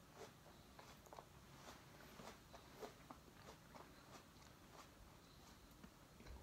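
Faint crunching of a person chewing a mouthful of raw apple: soft, irregular crunches about two a second.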